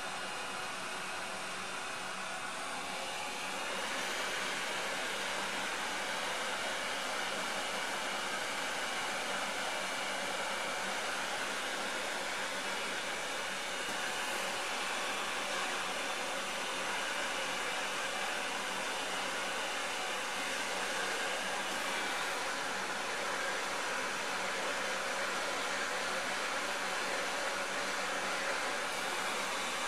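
UTEN 959D hot-air rework station blowing a steady hiss of hot air from its handpiece nozzle, a little louder about four seconds in, as it heats a chip's flux-coated pins to melt the solder for desoldering.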